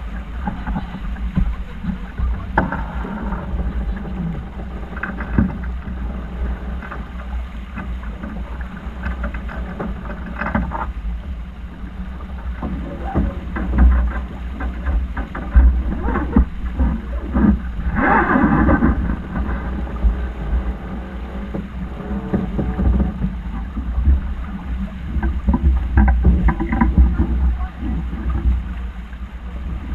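Wind buffeting the microphone and water rushing along the hull of a sailing yacht under way, a gusty low rumble that swells and fades, with a louder rush about 18 seconds in.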